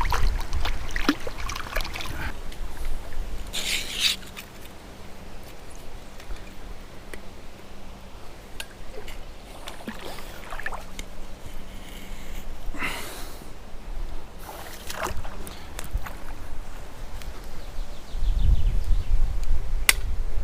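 Gusts of wind buffeting the microphone at the start and again near the end, with scattered short rustles and knocks in between.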